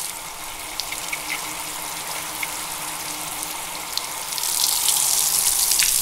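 Bathroom tap water running, a steady rushing hiss with a few small drip-like ticks, growing louder about four and a half seconds in.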